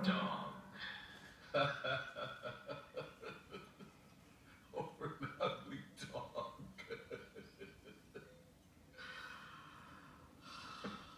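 A man's gasping, breathy vocal outbursts from a film, heard through a TV's speakers. They come in quick catches of breath, several a second, for about six seconds, then fade to quieter breathing.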